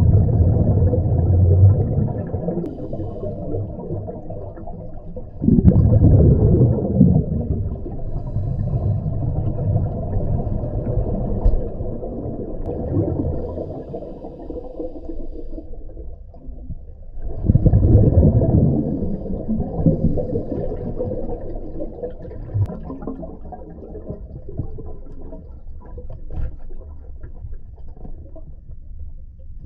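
Underwater recording of a scuba diver breathing through a regulator: muffled bubbling rushes of exhaled air, with louder surges about five and a half and seventeen and a half seconds in.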